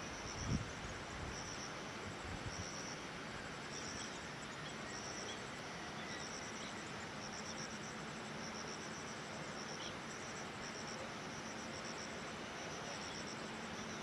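Crickets chirping in short, high, pulsed bursts that repeat evenly a little faster than once a second, over a steady outdoor hiss. A soft low thump comes about half a second in.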